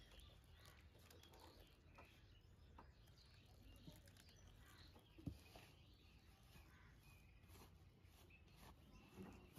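Near silence: faint outdoor background with scattered small ticks and one sharp tap about five seconds in.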